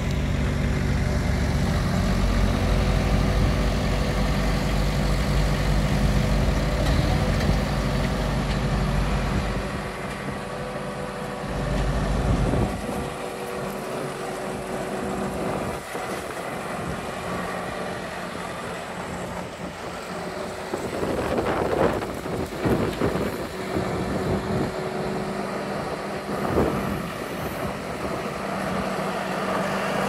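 Case 450 skid steer's diesel engine running, loud and steady up close for about the first twelve seconds, then quieter as the machine drives about. Scattered knocks and crunches come in the later part.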